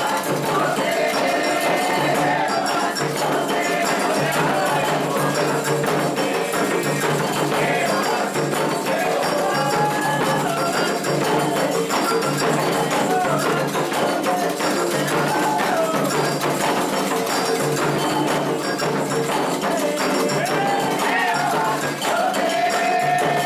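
Candomblé ritual music for Oxossi: a steady rhythm on atabaque hand drums with a metal bell and shakers, and voices singing over it.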